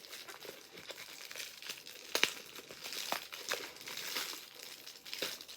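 Packaging being crinkled and rustled by hand as an item is unwrapped, in irregular crackles with a sharper crackle about two seconds in.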